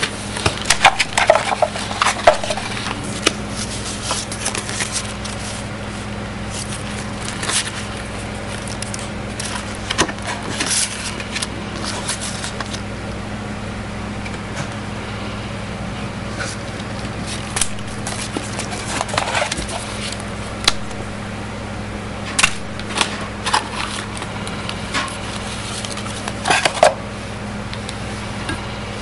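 Paper leaflets and cardboard packaging being handled: irregular crackling and rustling, with bursts of sharper crinkles, over a steady low hum.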